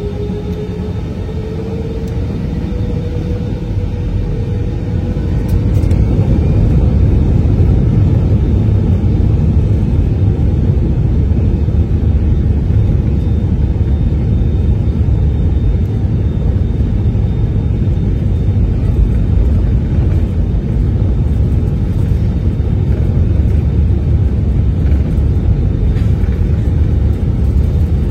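Airbus A320 jet engines spooling up to takeoff thrust. A rising whine in the first few seconds builds in loudness until about six seconds in, then gives way to the steady loud rumble of the takeoff roll.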